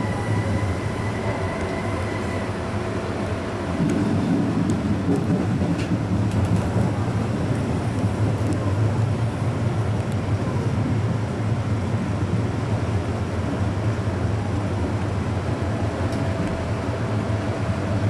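Electric train running along the track, heard from inside the driver's cab: a steady rumble of wheels and motors that grows louder about four seconds in, with a few light clicks from the rails.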